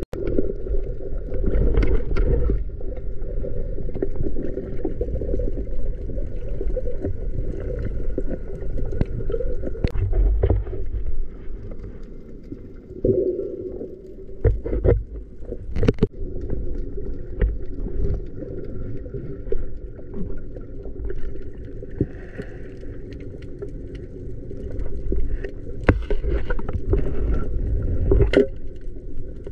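Underwater recording: a steady droning hum over a low rumble, with sharp knocks and scrapes now and then, the loudest a cluster in the middle and another near the end.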